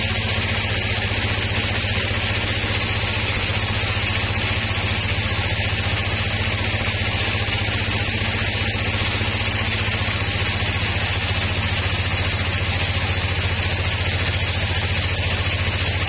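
Sawmill band saw running steadily: a constant low motor hum with an even hiss above it, unchanging throughout.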